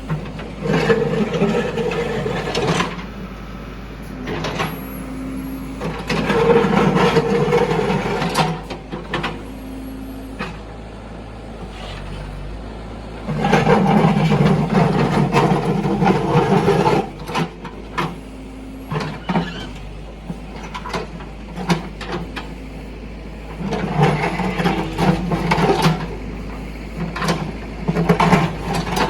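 JCB 3DX backhoe loader's diesel engine working hard under hydraulic load in repeated strokes a few seconds long. There is scraping and cracking as the bucket teeth tear up the road surface, and the engine settles to a steadier, lower hum between strokes.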